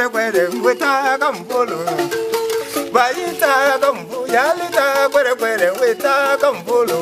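A man singing with a wavering voice while he plays a hand-held raft instrument of bound cane stalks. The instrument gives steady low tones and a rhythmic rattle throughout.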